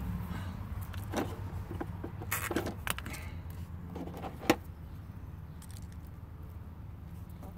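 Clear plastic bleeder hose and its fittings being handled and fitted by hand: a scatter of small clicks and rattles, with one sharp click about four and a half seconds in, over a steady low hum.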